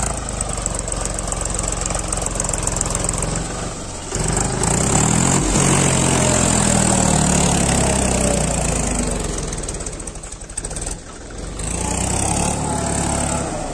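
Mahindra 275 tractor's three-cylinder diesel engine revving hard under load as it strains to pull its rear wheel and a loaded sand trailer out of deep sand. The revs climb about four seconds in, hold high for several seconds, drop away near ten seconds, then pick up again near the end.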